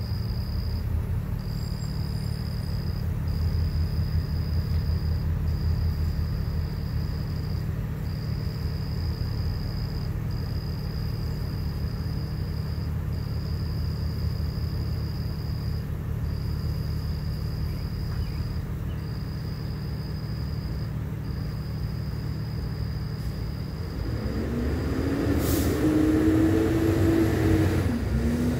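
Steady low rumble of motor traffic, with a thin high-pitched tone that sounds in repeated stretches of about a second each. From about 24 seconds in, a louder engine-like sound swells up, its pitch rising and then falling off near the end, like a vehicle passing.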